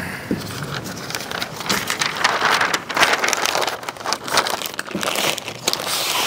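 Butcher paper crinkling and rustling as it is folded and wrapped tightly around a smoked beef flat, with a run of irregular crackles that is loudest about three seconds in.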